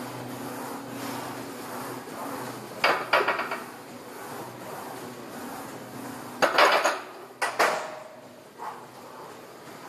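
Iron weight plates on a heavily loaded barbell clanking against each other and the metal bar. There is a burst of clanks about three seconds in, two louder clanks with ringing between six and eight seconds, and a small knock near the end, over a steady low hum.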